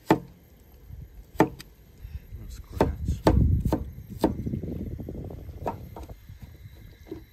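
A series of about ten sharp, irregular knocks and taps, with a low rumble of handling noise through the middle.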